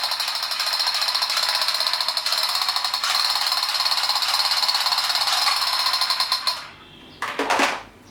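Toy machine gun firing with a fast, continuous rattle that stops abruptly about six and a half seconds in, followed by a brief sharp sound about a second later.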